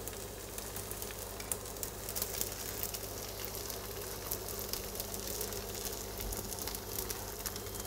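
Norwegian pancake batter frying in a pan: a steady sizzle with faint scattered crackles, over a low steady hum.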